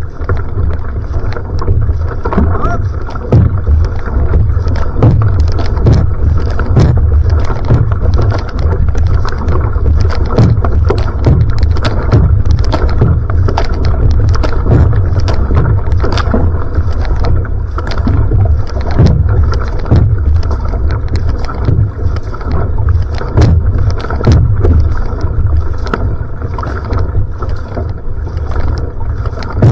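Outrigger canoe (va'a) paddled at sprint pace: a steady rhythm of paddle strokes splashing in the water, over water rushing along the hull and a heavy low rumble of wind on the microphone.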